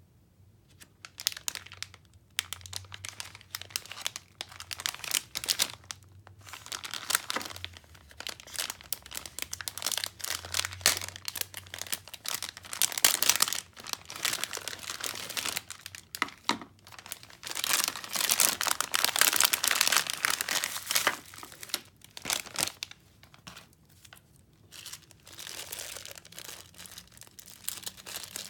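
Clear plastic zip-lock bags crinkling and rustling as hands open them and handle the parts inside. The rustle comes in irregular bursts, with the loudest stretches in the middle.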